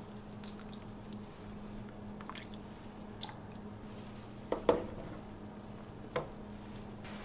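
Porcelain soup spoon scooping fish balls and broth out of a pot and pouring them into a noodle bowl: liquid sloshing and dripping, with sharp clinks of the spoon against the pot or bowl, the loudest a close pair a little past halfway and another near the end. A steady low hum runs underneath.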